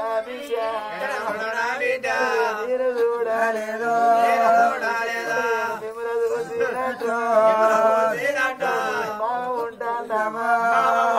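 Male voice singing an Oggu Katha chant-like lament in long held notes that bend up and down in pitch, over a steady drone.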